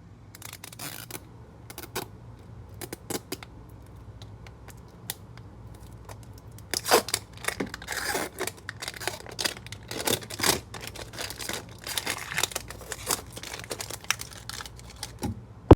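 Plastic wrap being picked at, torn and crinkled off a Mini Brands toy package, in scattered scratches and clicks that turn into busier bursts of crackling tearing from about seven seconds in. The wrap is hard to get off.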